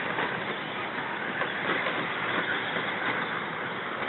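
A field of 2WD short course RC trucks racing on a dirt track, a steady mixed noise of their motors and tyres.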